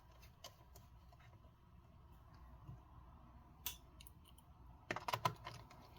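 Faint clicks and ticks of a small screwdriver working tiny screws into a laptop's plastic bottom cover, with one sharper click near the middle and a quick cluster of clicks about five seconds in.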